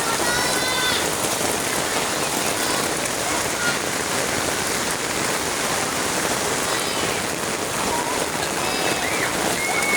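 Rain falling steadily, an even hiss of drops on the ground, with faint children's voices a few times.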